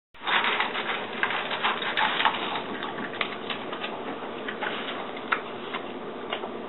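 French bulldog eating dry kibble from a stainless steel bowl: rapid crunching and clicking of kibble against the metal, beginning suddenly a moment in.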